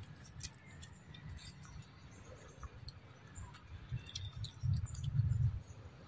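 A macaque biting and chewing a green fruit: scattered small clicks and crunches. A louder low rumble comes about five seconds in.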